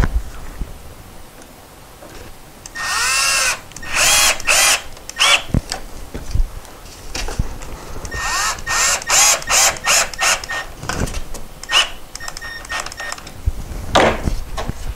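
Cordless driver driving pocket screws into a poplar cabinet-door frame in trigger bursts, the motor pitch rising and falling with each. There is one longer run about three seconds in, then a string of short quick pulses from about eight to ten seconds as a screw is snugged home.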